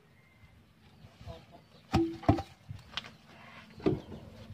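Cut logs knocking against one another as they are handled and loaded by hand: a quiet start, then four sharp wooden knocks with a short ring in the second half.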